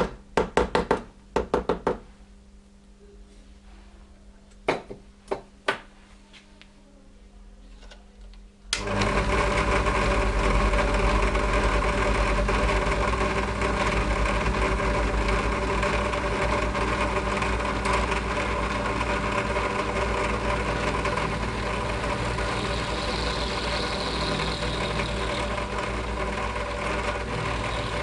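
A small hammer taps the workpiece in the drill press vise, a quick run of light metallic taps and then three more a few seconds later. About nine seconds in the drill press starts and runs steadily, its end mill cutting into a nylon block.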